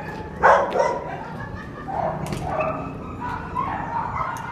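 Dogs in shelter kennels barking: one loud bark about half a second in, then quieter, higher barks and yips.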